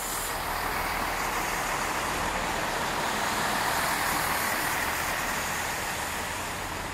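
Push-pull train pulling away with a Class 82 Driving Van Trailer leading and a Class 67 diesel locomotive propelling at the rear: a steady diesel drone under power, mixed with wheel and rail noise. It swells a little as the train draws nearer, then eases slightly near the end.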